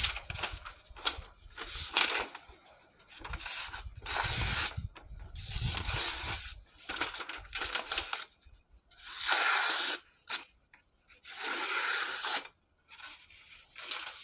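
Handmade knife blade making repeated slicing cuts through a material: a series of about ten noisy strokes, each up to a second long, as the edge's retention is tested.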